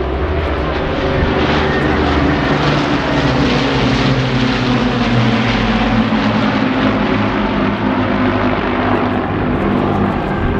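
Vintage piston-engined warbirds with Rolls-Royce Merlin engines flying past, a loud propeller drone of several engines together that is heaviest around the middle, with its low tones sagging slightly as they pass.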